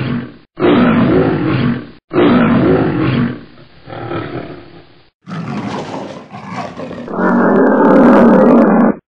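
A string of loud, drawn-out animal roars. Each starts and cuts off abruptly, as if separate takes were spliced together. The last one, about seven seconds in, is the loudest and sounds muffled.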